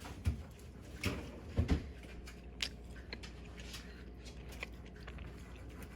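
Someone biting into and chewing a mini donut with the mouth close to the microphone, heard as a few short wet smacks and clicks spread over the first few seconds, then quieter chewing.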